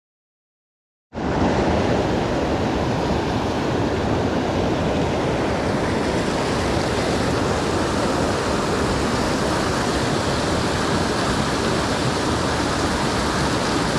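Steady rush of a flooded creek's rapids, loud and even with no let-up, cutting in abruptly about a second in after dead silence.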